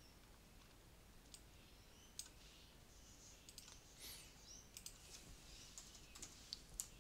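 Faint, scattered clicks of a computer mouse and keyboard keys, more frequent in the second half.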